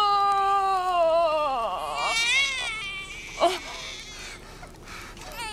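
Infant crying: one long cry that falls in pitch as it dies away, then a shorter wavering cry about two seconds in, and another cry starting at the very end.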